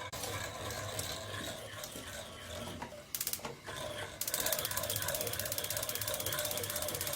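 Rapid, evenly spaced mechanical clicking, a brief burst about three seconds in, then running steadily from about four seconds on.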